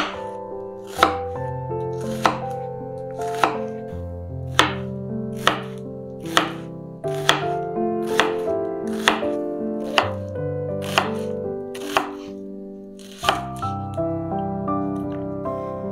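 Kitchen knife chopping an onion on a wooden cutting board: single crisp cuts about once a second that stop about 13 seconds in.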